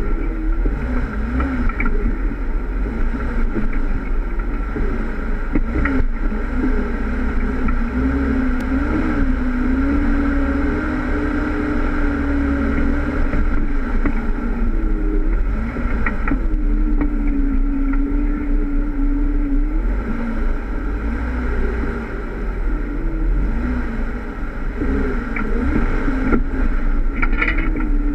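Jeep Wrangler engine running at low speed off-road, its pitch rising and falling slightly with the throttle over a steady low rumble, with a few short clicks or knocks along the way.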